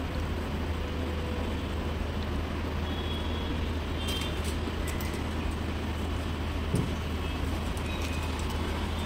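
A steady low hum under constant background noise, with a few faint light ticks about four seconds in and again near the end.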